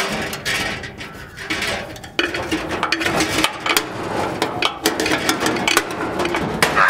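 Hand tools working at a tractor battery: a spanner clinking and scraping on metal, many short clicks and knocks over a steady noisy background.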